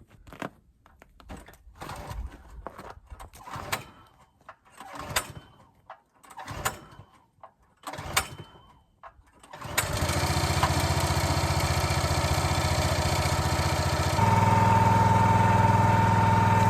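Small gas engine on a log splitter being pull-started cold after sitting unused for a month or two: several rope pulls with sputtering bursts, then it catches about ten seconds in and runs steadily, its note changing and settling about four seconds later.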